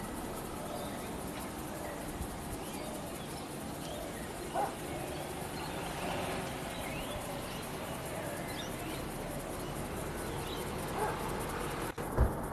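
Faint scattered bird chirps over steady outdoor background noise, with a short louder call about four and a half seconds in and a sharp knock just before the end.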